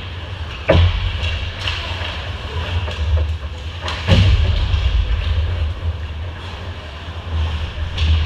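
Ice hockey play in front of the goal: two sharp knocks, about a second in and again about four seconds in, over a steady low rumble.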